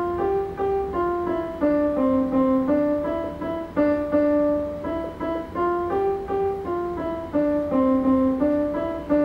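Digital piano playing a simple two-part tune, notes struck one after another at about two a second, the same short phrase coming round about every four seconds.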